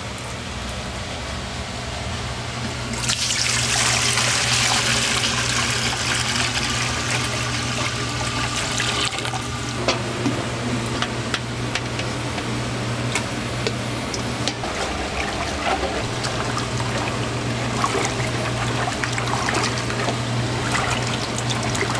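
Liquid poured from a plastic pitcher through a metal mesh strainer into a stainless steel stockpot, a steady splashing rush from about three seconds in that stops after about six seconds. After it, a thick sauce mixture is scraped from a steel bowl into the pot and stirred by hand, with small clicks of metal and sloshing, over a steady low hum.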